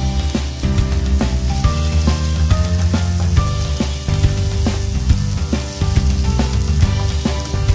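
Chopped onion, garlic and ginger sizzling in hot oil in a pan while a spatula stirs them, over background music with a melody and bass.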